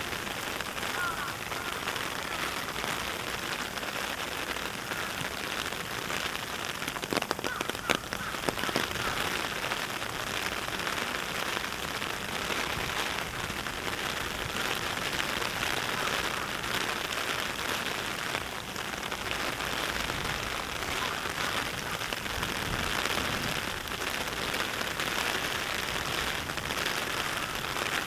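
Heavy rain falling steadily, a dense even hiss of drops. A few sharp ticks stand out briefly about seven to nine seconds in.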